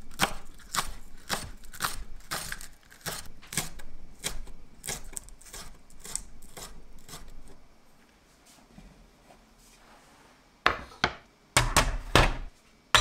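A kitchen knife slicing green onion tops into thin rings on a wooden cutting board: quick, even strokes, two or three a second, that stop after about eight seconds. After a short lull come several loud sharp clicks and knocks near the end.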